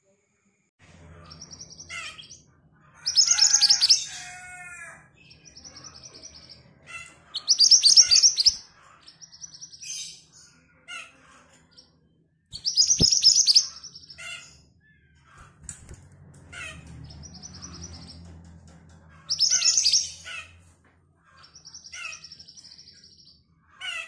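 A caged songbird singing in repeated phrases: loud, rapid high trills every few seconds, with steady high whistled notes between them. A faint low hum runs underneath.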